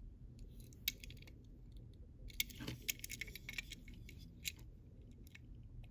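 Faint clicks and light taps of small die-cast toy pickup trucks being handled and turned over in the fingers, with a short cluster of them about two and a half to three and a half seconds in.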